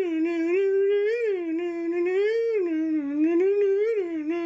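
A long, unbroken howl whose pitch wavers slowly up and down without a pause for breath.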